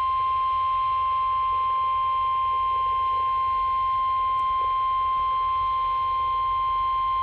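NOAA Weather Radio warning alarm tone: one steady, high beep at about 1050 Hz over a low background hum. It is the attention signal that a weather warning message is about to be read.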